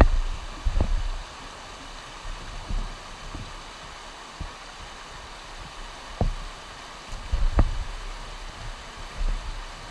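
River water rushing over a weir's rock ledges as a steady hiss, broken by several dull thumps, the clearest about six and seven and a half seconds in.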